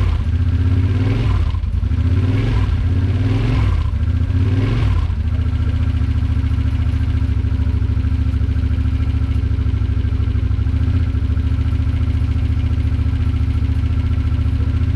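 Freshly rebuilt 2008 Kawasaki Brute Force 750 V-twin engine being blipped, about once a second, five times, then settling into a steady idle.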